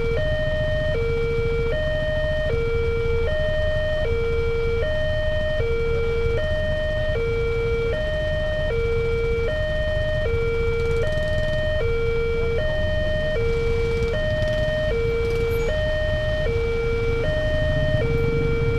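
Railway level-crossing warning siren sounding a steady two-tone alternation, a low note and a higher note each lasting about three-quarters of a second, over a steady low rumble.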